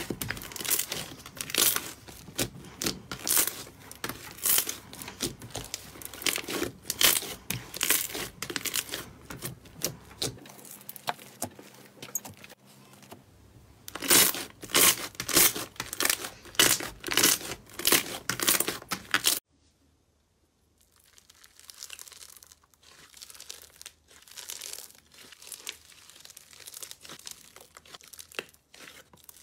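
Hands squeezing and kneading a thick slime, giving repeated sharp crackling pops and squelches, several a second. About two-thirds of the way through this cuts off abruptly to softer, quieter crackling as hands press into a pink slime.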